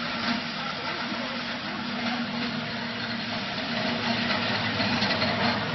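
Wood crusher with cyclone running steadily: a continuous machine hum under an even rushing noise.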